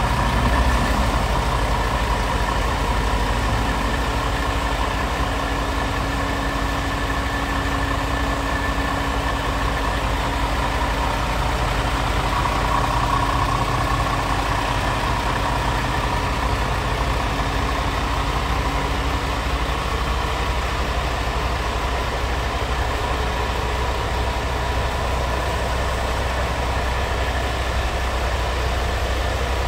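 Scania G-series tractor unit's diesel engine idling steadily.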